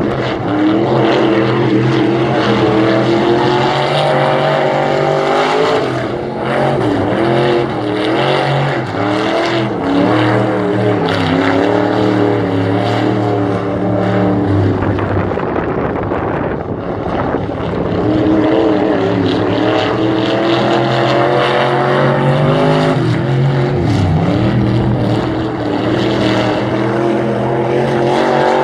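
Dirt late model race car's V8 engine on hot laps around a clay oval. Its pitch climbs for several seconds down each straight, then drops as the driver lifts for the turns, over and over.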